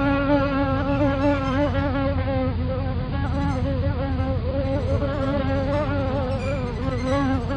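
Background music: one instrument holding a single wavering tone at a steady pitch, its wobble giving it a buzzing quality.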